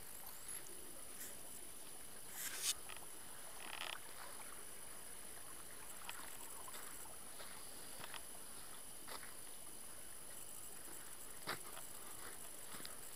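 Faint steady rush of water from a flooded forest stream, with scattered light crackles of footsteps on a leaf-covered path and a louder brief rustle about two and a half seconds in.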